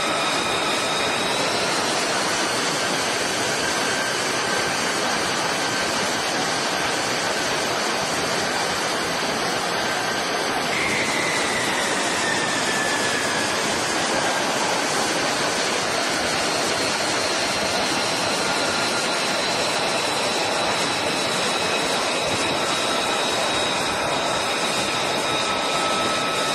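F-35C's Pratt & Whitney F135 turbofan running on a carrier catapult before launch: a loud, steady jet noise with high whine tones over it. About eleven seconds in, one whine slides down in pitch over a few seconds.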